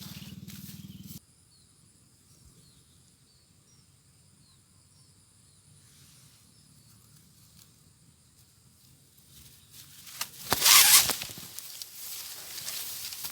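Faint, repeated chirps of a small bird in a quiet spell. About ten and a half seconds in, a loud scuffling, rustling noise close to the microphone, then lighter rustling.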